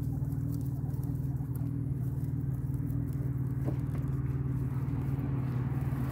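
A steady low mechanical hum.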